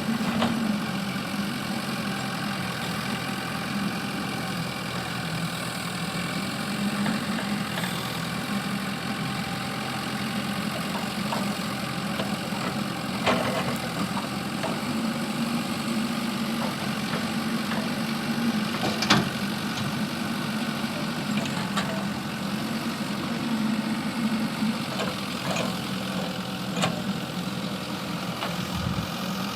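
JCB backhoe loader's diesel engine running steadily, with a few sharp knocks scattered through it, the loudest about 19 seconds in.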